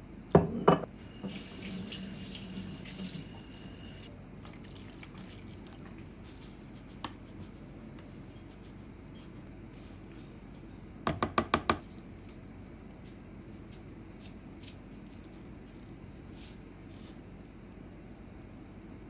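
Two sharp knocks, then a tap runs into a sink for about three seconds and shuts off. About eleven seconds in comes a fast run of five clicks.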